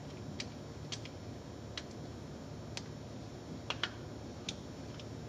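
Scattered faint light clicks and ticks, about nine in five seconds at irregular spacing, of small metal bits being handled by hand at an engine's rear seal, over a low steady room hum.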